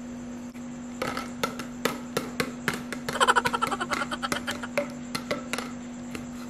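Empty plastic Sprite bottles squeezed and crumpled by hand, crackling in a run of sharp clicks, densest in the middle. A steady low hum runs underneath.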